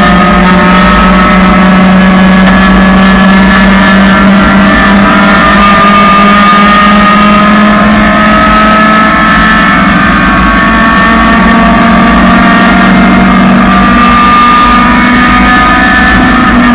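1999 Honda Civic's four-cylinder engine running loud at high revs under track driving, its pitch holding nearly steady and climbing slowly.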